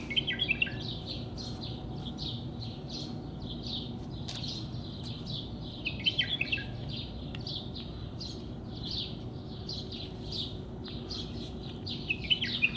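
Small birds chirping, short high chirps about two or three a second, with a busier burst of twittering about half a second in and again around six seconds in, over a faint steady background hum.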